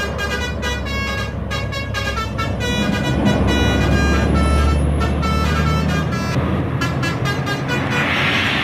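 A bus's Basuri 'telolet' musical air horn playing a rapid tune of short notes over the bus's running engine. The engine swells louder partway through, and a burst of hissing comes in near the end.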